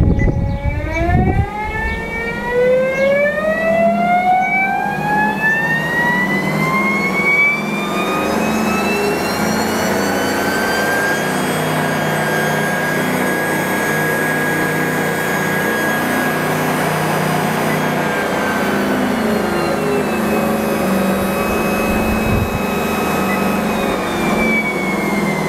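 ProForm Endurance treadmill's drive motor and belt speeding up: the motor's whine rises in pitch for about ten seconds, holds steady, then drops a little at about twenty seconds and falls again near the end as the speed comes down. The treadmill is running normally after its repair.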